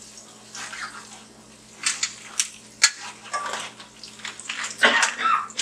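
Crab claws dropped into a pot of onions frying in hot oil: a steady sizzle with several sharp clacks of shell against the pot, the loudest clatter near the end.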